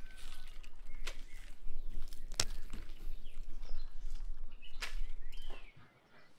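A knife cutting through green onion stems and roots: a few crisp snicks, the sharpest about two and a half seconds in, with birds chirping now and then.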